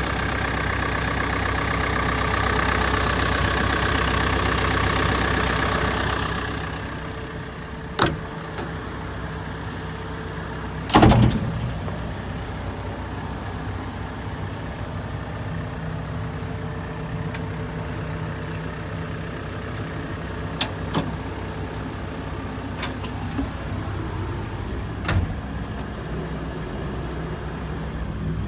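Diesel engine of a JCB JS130LC tracked excavator running, louder for the first six seconds and then settling to a steady idle. A few sharp knocks sound over it, the loudest about eleven seconds in.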